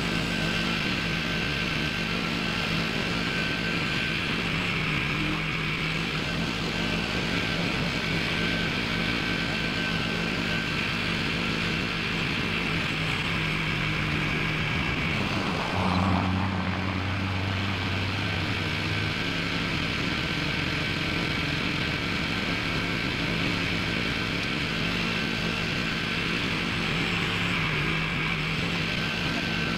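Small gas engine of a Groundhog HD99 post hole auger running steadily under load while the auger drills a post hole. About halfway through there is a brief rising whine and a louder low hum for a few seconds as the load changes.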